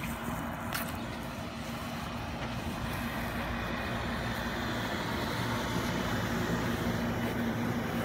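Steady rushing noise with a low, even hum underneath, growing slightly louder in the second half.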